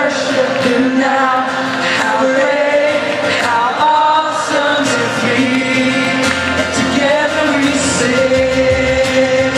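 Live concert music heard from far back in an arena: singing over guitar and band accompaniment, with a low sustained note coming in about six seconds in.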